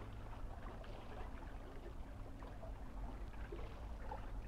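Faint, steady sea water lapping gently at the shore, with a constant low hum underneath.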